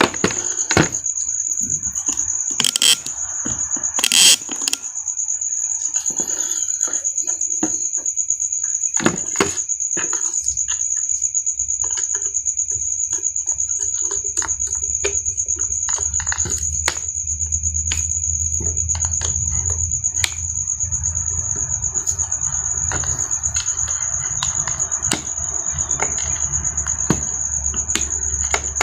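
Scattered clicks and knocks of small parts and hand tools being handled during work on an electric drill, loudest in the first few seconds. Under them runs a steady high-pitched whine, and a low hum comes in about ten seconds in and grows louder from about sixteen seconds.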